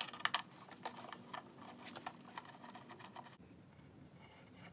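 Screwdriver loosening the bolt of a motorcycle battery terminal to disconnect the battery: a cluster of small sharp metallic clicks in the first second and a half, then faint handling as the cable is worked off the terminal.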